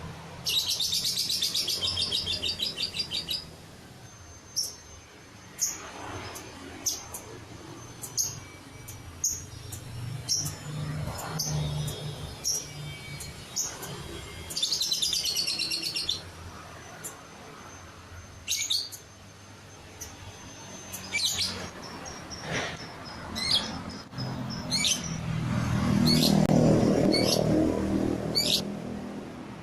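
Lovebird singing: two long rapid high trills, one near the start and one midway, broken up by many short sharp chirps. A louder low noise runs for a few seconds near the end.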